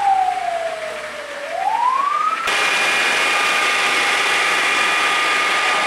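A fire truck's siren wails, falling slowly and then rising again, until it cuts off abruptly about two and a half seconds in. A steady drone with a constant whine follows, a fire truck's engine running.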